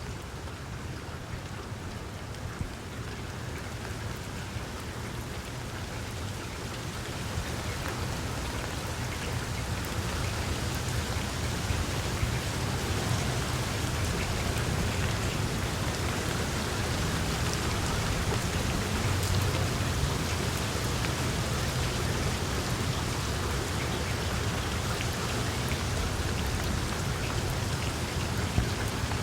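Steady rain falling on tree leaves, with scattered drop patter. It grows louder over the first ten seconds or so, then holds steady.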